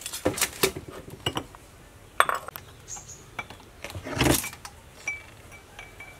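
Kitchen containers being handled on a table: a plastic colander, a steel bowl and a glass jar. Scattered clinks and knocks, with a longer, louder rattle about four seconds in.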